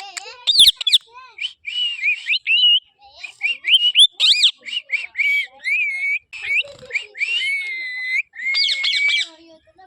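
Pet parrot whistling and chattering: a quick run of short whistled notes sliding up and down, with a longer held whistle about seven seconds in.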